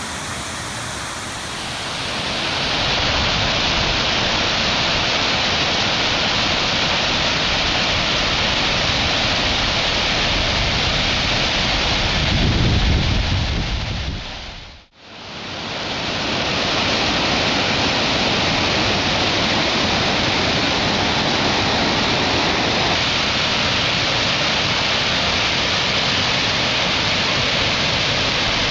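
Steady roar of Rainbow Falls, a large waterfall, heard close up. The roar swells in its low end just before the halfway point, then drops out for a moment and comes straight back.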